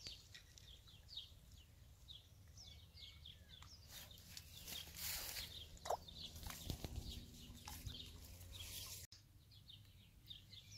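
Faint chirping of small birds: short, high, downward-sliding calls repeated many times, with some rustling and clicks around the middle.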